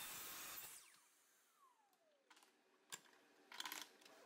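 DeWalt miter saw motor running for under a second at the start, then coasting down with a falling whine once the trigger is released. A few light clicks and taps follow as the small cut-off pieces are handled.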